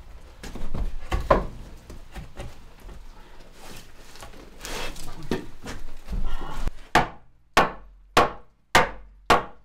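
Wooden window frame knocked and shuffled against the log wall, then a hammer striking wood in an even series, a little under two blows a second, starting about seven seconds in.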